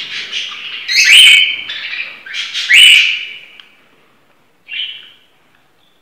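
Hand-fed parrot chicks giving loud, harsh begging calls at the feeding syringe. The two loudest calls come about a second and about three seconds in, and a shorter, fainter one near five seconds.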